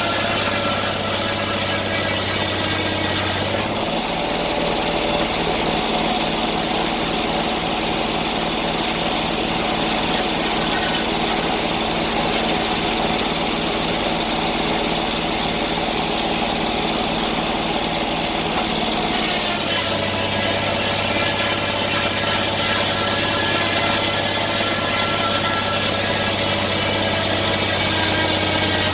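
Sawmill's engine running steadily. Its note changes about four seconds in and changes back about nineteen seconds in.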